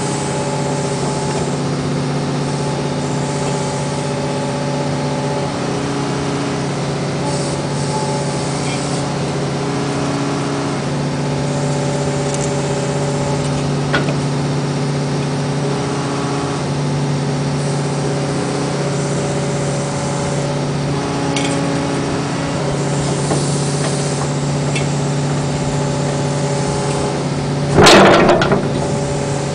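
Excavator's diesel engine running steadily, with the hydraulics' tones stepping up and down as the bucket and thumb are moved in small increments. A sharp click comes about halfway, and near the end a loud, rough noise lasts about a second.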